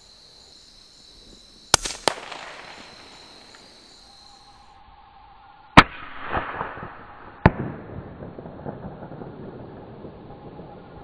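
Gunshots: two sharp cracks close together about two seconds in, the loudest shot about six seconds in, and one more a second and a half later. Each trails off in a rolling echo.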